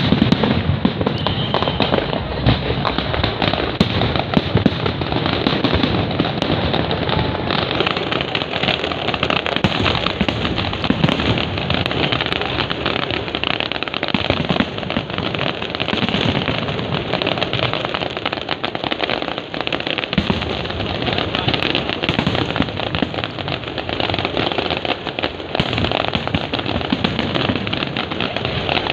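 Fireworks display going off continuously: rapid, overlapping bangs and crackling with no pause.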